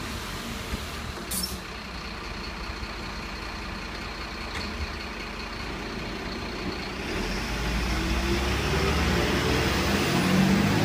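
Heavy garbage truck's diesel engine running at idle with a thin steady whine and a couple of sharp clicks; about seven seconds in the engine gets louder and climbs in pitch as the truck pulls away.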